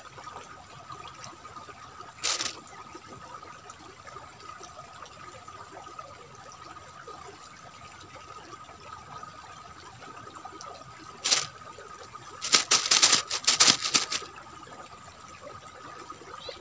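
Steady trickle of a small river's water, with a faint constant high tone. There is a sharp click about 2 s in and another about 11 s in, then a loud rapid run of clicks near the end.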